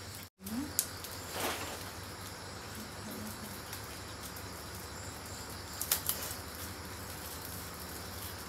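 Steady background hiss and faint low hum, broken by a few faint clicks and a short rustle about a second and a half in.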